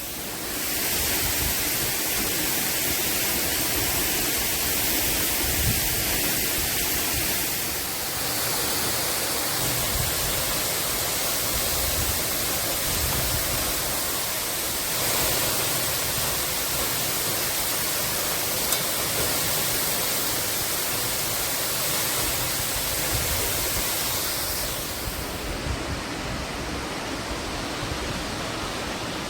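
Waterfall: a loud, steady rush of falling water, turning a little duller and quieter about 25 seconds in.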